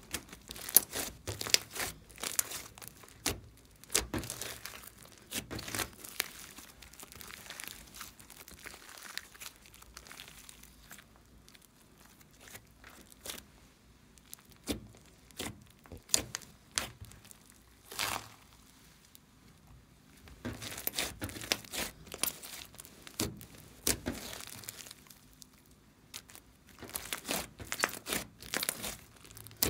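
Thick glossy slime mixed with small foam beads being squeezed, folded and stretched apart by hand, giving runs of sharp sticky pops and crackles. The pops come thickly at first, thin out through the middle, and pick up again in the last third.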